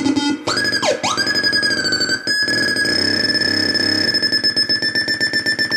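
Homemade light-controlled 'Robo Theremin' synth box, its pitch set by hands shading its light sensors. The electronic tone swoops steeply down and back up about half a second in, then holds a steady high pitch with a fast buzzy pulse. There is a brief click a little after two seconds in.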